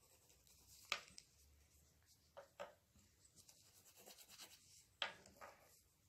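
Faint scratchy strokes of a pencil shading across paper. The sharpest strokes come about a second in and about five seconds in.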